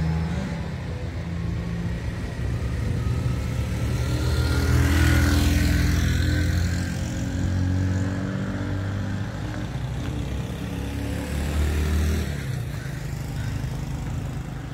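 Street traffic with engines running, and a vehicle passing close about five seconds in, its sound swelling and then fading.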